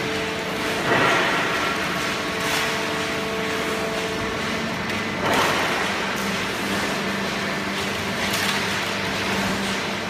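Industrial cardboard baler running with its feed conveyor: a steady machine hum carrying a few faint tones. Four short rushes of noise break in as scrap cardboard is thrown onto the conveyor.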